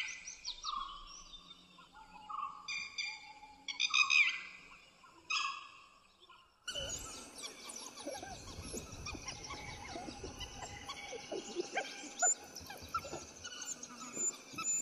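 Repeated animal calls, each a short lower note followed by a higher, harsher burst, about every one and a half seconds. About six and a half seconds in, the sound changes abruptly to forest ambience with bird chirps, rustling and soft low thuds.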